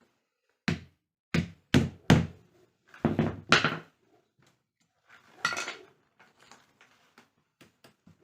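A series of sharp knocks and thuds, four in quick succession in the first two seconds, then a heavier cluster and a rougher knock a couple of seconds later, with light clicks and taps between.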